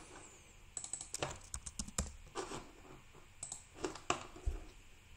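Irregular clicks and taps of a computer keyboard and mouse, in small clusters of a few strokes.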